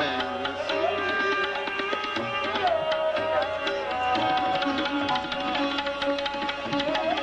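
Live ghazal music: tabla strokes over sustained harmonium notes, with a melody line that slides between held pitches.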